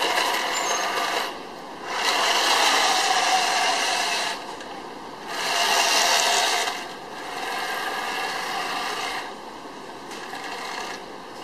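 Radio-controlled toy tank driving over asphalt: electric drive motors and gearboxes whirring while the tracks grind and scrape on the road, in spurts that start and stop, with three louder runs followed by softer running.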